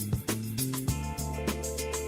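Background music with a steady beat, bass and held notes.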